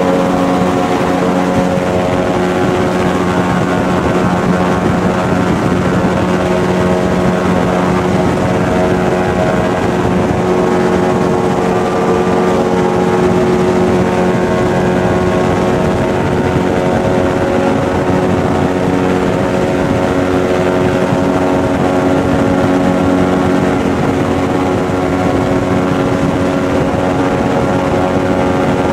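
Airboat's engine and large air propeller running at speed, heard from on board: a loud, steady drone with many even tones.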